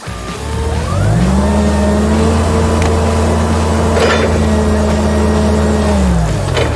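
A vehicle engine or motor winds up in pitch over about a second, holds one steady pitch for about five seconds, then winds down near the end.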